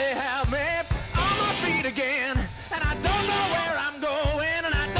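Rock song with a singing voice and a steady drum beat.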